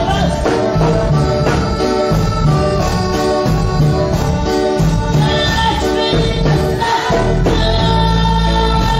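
Live band playing upbeat Latin-style gospel music, with electric bass and drums, amplified through a PA, and a woman singing over it.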